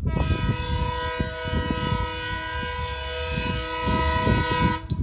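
Horn of WDG-3A twin diesel locomotives leading an express, sounding one long blast of several tones at once. It is held for almost five seconds and cuts off sharply near the end, over an uneven low rumble.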